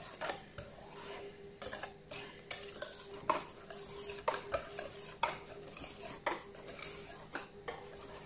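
Thick cake batter being stirred by hand in a stainless steel bowl, the utensil scraping and clicking against the metal in irregular strokes. A faint steady hum runs underneath.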